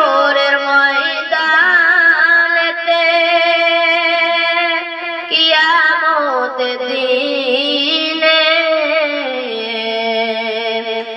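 A boy's solo voice singing a Bengali Islamic devotional song, drawing the words out into long held notes with a wavering, ornamented line. There is a short breath about halfway through, and the melody slides down to a lower held note near the end.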